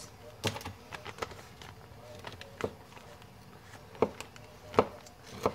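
Handling noise from a plastic bag and kitchen items being moved about on a counter: a handful of scattered light clicks and knocks over a faint rustle.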